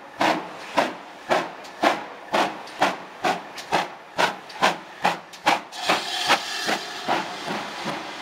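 GWR 4300 class 2-6-0 steam locomotive No. 5322 pulling away from a station, its exhaust chuffing about twice a second and slowly quickening as it gathers speed. After about six seconds the beats fade into a steadier hiss.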